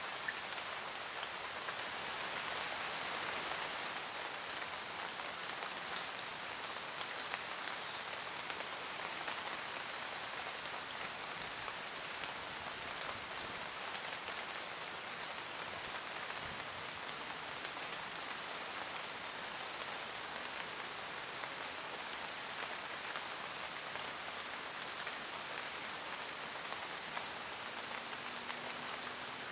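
Steady rain falling in a forest, a dense even patter of raindrops with occasional individual drops ticking out.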